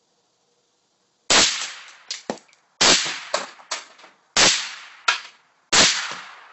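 Four suppressed shots from a Ruger Mini-30 firing high-velocity 7.62x39 Wolf ammunition, about one and a half seconds apart, each followed by a couple of quieter sharp clicks. The suppressor keeps the rifle quiet even with this ammunition.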